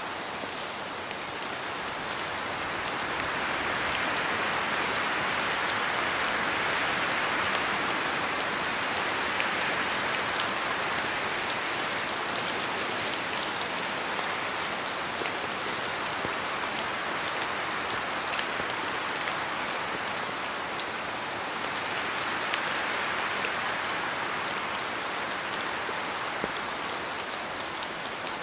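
Steady rain, a dense hiss scattered with sharp drop ticks. It swells louder a few seconds in and again later.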